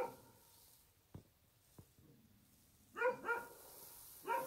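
A dog barking in short bursts: a bark at the very start, two quick barks about three seconds in and another pair near the end, with two faint knocks in between.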